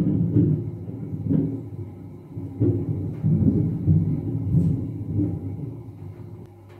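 Thunder rolling in several low swells, then fading away near the end.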